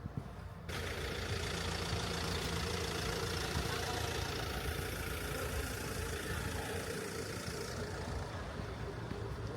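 Steady vehicle engine running, with a low rumble under a wide hiss; it cuts in abruptly under a second in, and the highest hiss eases off near the end.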